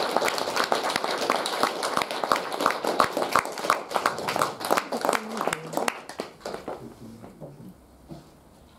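Audience applauding, the clapping thinning out after about six seconds into a few scattered claps and then dying away.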